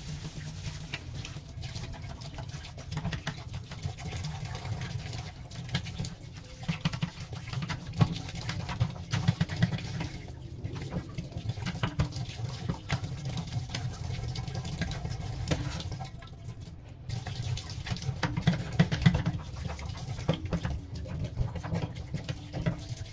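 Tap water running into a stainless steel kitchen sink while a hand scrubs the basin around the drain, with many small clicks and rubbing sounds from the scrubbing.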